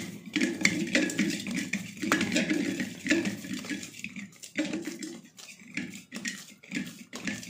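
Hands kneading oiled wheat-flour dough in a stainless steel bowl: the dough is pressed and slapped against the metal in irregular strokes, with light knocks and scrapes of the bowl.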